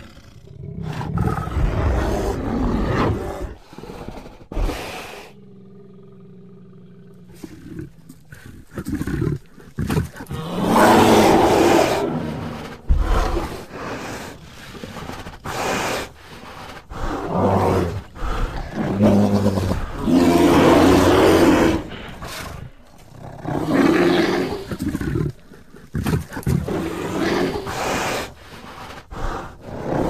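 Black bear growling and roaring in a string of loud bouts of varying length, with short pauses between them. About five seconds in there is a quieter, steady low call lasting a couple of seconds.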